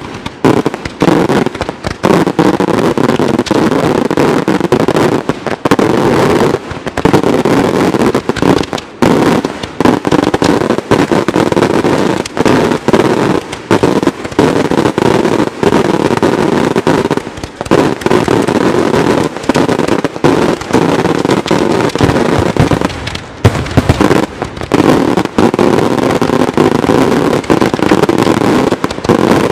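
Daytime fireworks battery of multi-break salute shells firing close by: a dense, unbroken barrage of loud bangs from shells bursting overhead and launching from the mortars.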